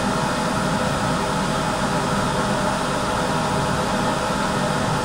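Steady whooshing hiss with a low hum from a running fan, unchanging throughout.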